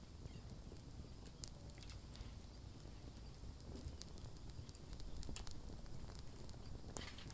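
Wood campfire crackling: sharp pops and snaps at irregular intervals over a low steady rumble, with a quick run of crackles near the end.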